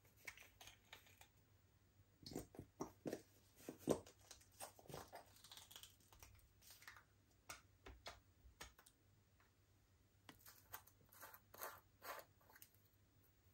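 Slime being squeezed and stretched by hand: faint, irregular sticky clicks and small pops, busiest about two seconds in and again near the end.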